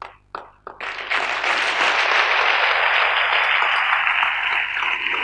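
Audience applauding, a dense crackle of many hands clapping that breaks out about a second in, after a few brief sounds, and holds steady.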